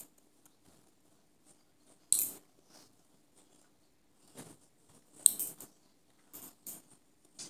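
Lever-type nail clipper snipping a cat's claws: two sharp snaps about two and five seconds in, with softer clicks and rustling of fur and handling between.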